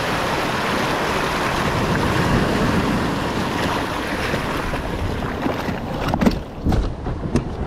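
Surf washing in and out around the hull of a sit-on-top plastic kayak, with wind buffeting the microphone. A few short knocks near the end as the kayak and its paddle are handled.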